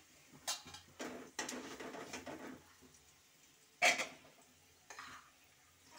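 A metal spatula scraping and stirring fried peanuts and onions in an aluminium kadai, several strokes in the first couple of seconds, then a sharp metal clank about four seconds in.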